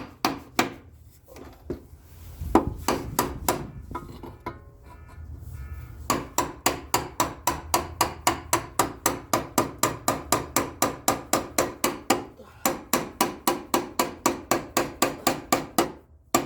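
Hammer tapping a car's upper control arm into its mount, each strike ringing briefly. The blows are scattered at first, then from about six seconds in come as a steady run of about four taps a second.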